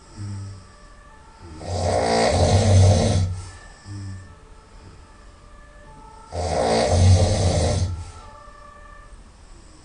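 A person snoring very loudly through the nose, with two long snores about a second and a half each, one a little over a second and a half in and one past six seconds. A short, quieter breath follows each snore.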